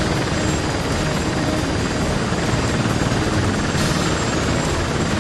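Military helicopter close by, its rotors and turbine engines making a steady, loud din.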